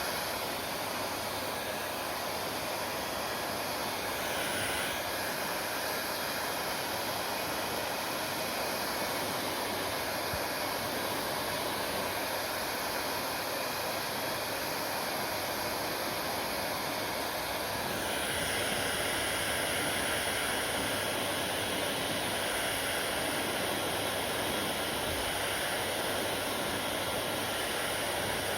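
Electric hair dryer running steadily, a constant rush of blown air; it gets a little louder and brighter about eighteen seconds in.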